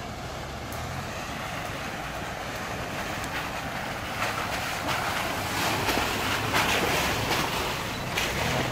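4x4 vehicle driving over a rough forest track: a low engine rumble under a broad noise of tyres and terrain. The noise grows louder about halfway through, with scattered knocks and clatter.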